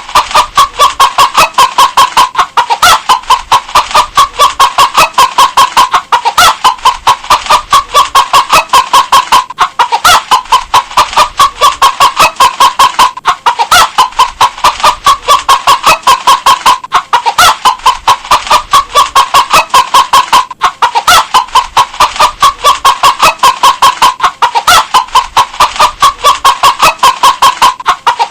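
Hen clucking continuously in a fast run of short clucks, about four a second. The same stretch of clucking repeats every three and a half seconds or so.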